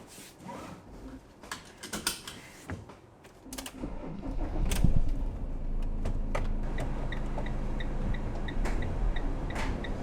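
Clicks and knocks of handling inside a van, then about four seconds in the van's engine starts and runs with a steady low rumble. A light, regular ticking about three times a second joins near the middle.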